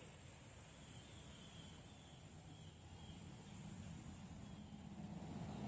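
High-pitched chorus of insects chirring steadily outdoors, dipping briefly a few times, over a low rumble.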